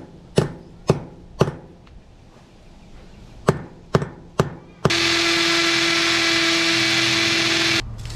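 Seven hammer blows, four and then three, driving an anchor into the concrete pad. Then an electric drill runs steadily for about three seconds and stops abruptly.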